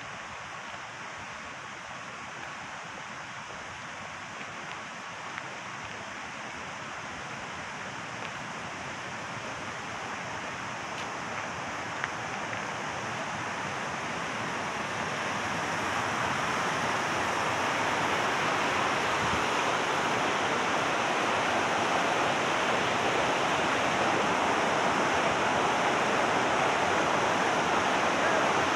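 Rushing water of river rapids pouring over a low dam, a steady hiss that grows louder through the first half and then holds.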